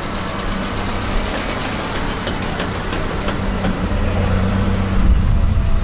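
A car engine idling: a steady low hum that grows louder near the end.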